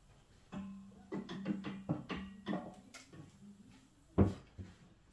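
Clicks and knocks of a tall steel tubular radiator being handled and hooked onto its wall brackets, with one sharp knock about four seconds in. Faint background music plays under it.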